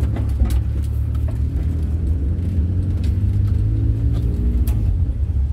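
Volkswagen Kombi camper van driving along, its engine and road noise a steady low rumble.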